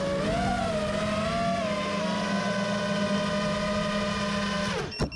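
An FPV quadcopter's four 2306 1700Kv brushless motors whining steadily, the pitch wavering gently with throttle. About five seconds in the pitch falls sharply and the whine cuts off as the motors spin down and stop.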